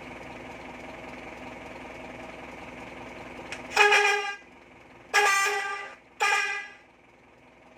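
Electric bus horn sounding through its 100-watt, 24-volt speaker: three separate blasts of one steady pitch starting about four seconds in, the middle blast the longest.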